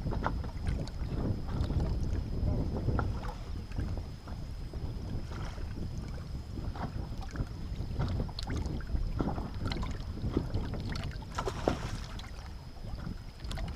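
Wind buffeting the microphone with a steady low rumble, and scattered small knocks and clicks throughout.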